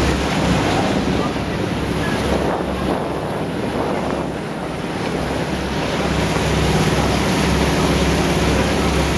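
Wind buffeting the microphone over the steady rush and splash of water churned up in a catamaran's wake as it moves along.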